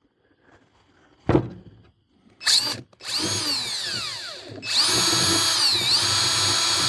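Power drill driving screws into scrap lumber. A single knock comes about a second in, then a short burst of the motor, then longer runs of steady whine whose pitch sags and recovers as the screw bites.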